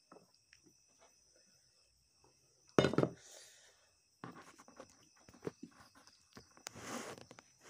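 Soft clicks and smacks of fingers mixing rice and curry on a plate, with one loud thump about three seconds in.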